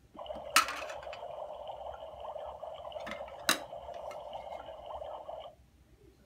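Toy kitchen stove playing its electronic cooking sound effect after a button press: a steady hiss with a faint high tone above it, lasting about five seconds and cutting off suddenly. Two sharp plastic clacks from toy dishes fall within it.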